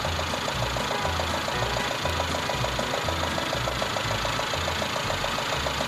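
Farm tractor engine, a red International, idling steadily with an uneven low throb and a fast, even ticking, heard through a worn VHS tape transfer.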